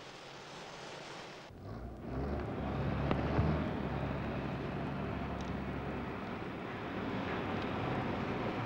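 A soft steady hiss, then from about a second and a half in the engine of a heavy port vehicle running steadily with a low hum, loudest just after it starts.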